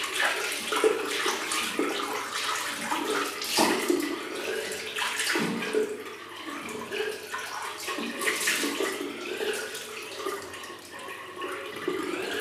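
A face being wiped with a wet face cloth: irregular swishing, rubbing and splashing sounds close to the microphone.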